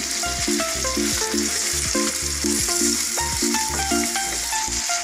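Chicken pieces frying in oil with browned onions on a medium flame, sizzling steadily as a wooden spatula stirs and turns them in the wok. Background music of short repeated notes plays alongside.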